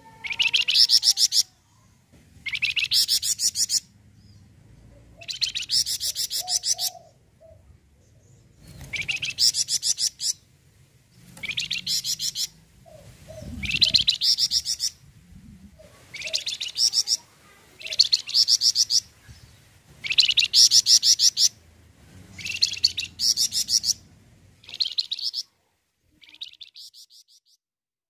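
A caged flamboyan songbird singing at full volume: about a dozen high, rapid chattering phrases, each about a second long, with short pauses between them. The last phrase is fainter.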